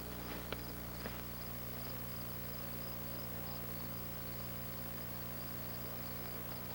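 Faint, steady high trill of insects over a constant low hum, with two light clicks within the first second or so.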